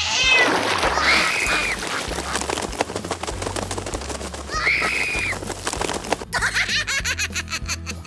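Cartoon cat yowling twice in arching cries, over a noisy flurry of splashing and duck wing-flapping, with background music underneath.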